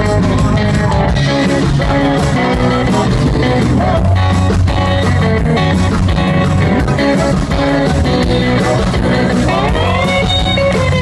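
A rock band playing live with electric guitar to the fore, in a passage without sung words, the guitar lines bending in pitch near the end.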